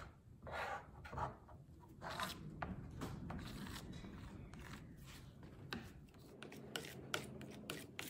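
Plastic scraper dragged across a lip balm filling tray, scraping off the excess set beeswax balm in repeated short strokes, with a few light clicks near the end.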